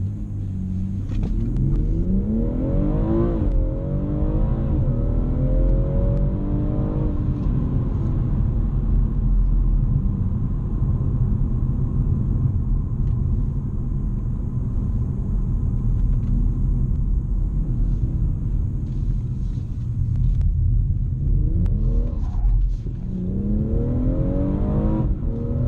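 BMW M240i's 3.0-litre turbocharged straight-six heard from inside the cabin, revs rising under hard acceleration for about three seconds, dropping, then rising again. It then settles into a steady engine drone with road noise, and the revs climb once more near the end.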